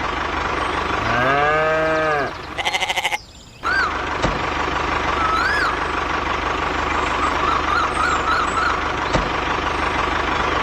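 A farm animal bleats once, a drawn-out call about a second in, over a steady mechanical hum with a constant whine. A quick pulsed sound and a brief dropout follow, then a few short chirps.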